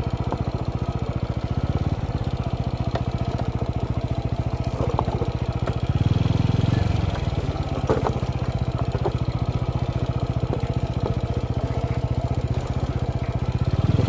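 Motorcycle engine running steadily as the bike is ridden over a rough, rocky dirt track, swelling briefly about six seconds in, with a few sharp knocks along the way.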